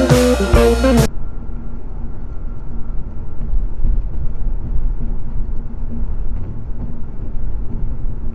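Rock guitar music for about the first second, then it cuts off suddenly. After that comes the steady, muffled road and engine rumble of a car driving on a highway, picked up by a dash camera's microphone inside the cabin.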